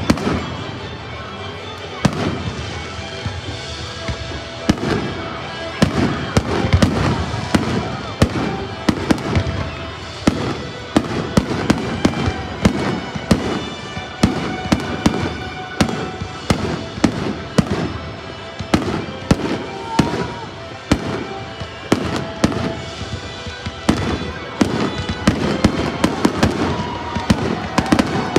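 Aerial fireworks shells bursting in rapid succession: dozens of sharp bangs and crackles, one after another throughout, with music playing underneath.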